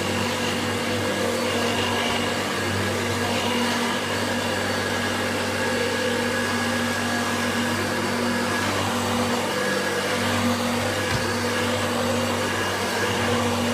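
Hoover Turbo Boost upright vacuum cleaner running steadily on its low speed setting: a constant motor hum and airflow rush with a steady whine.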